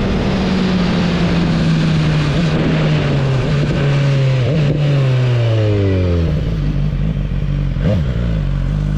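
Sport motorcycle engine heard from the rider's seat, its pitch falling steadily over about six seconds as the bike slows down. It then settles into a lower, steadier note, with a short blip of the throttle near the end.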